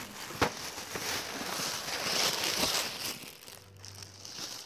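Tissue paper crinkling and rustling as it is handled and pulled out of a gift, with one sharp click about half a second in; the crinkling dies down after about three seconds.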